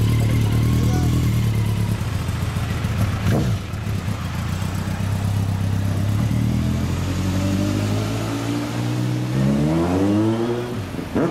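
Suzuki GSX1400 inline-four motorcycle engine running steadily, then accelerating away, its note rising over the last few seconds.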